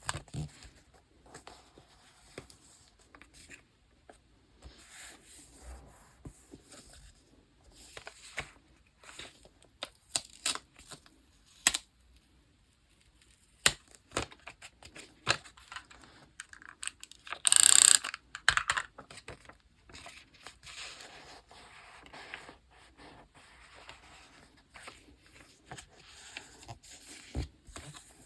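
Paper and stationery being handled while a diary page is decorated: scattered rustles, light taps and clicks on the page, with one short, loud rasp of paper a little past halfway.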